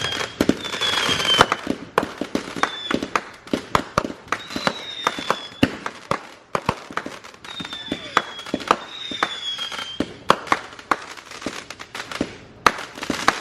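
Fireworks going off in quick succession: many sharp pops and bangs, with several short whistles that fall slightly in pitch.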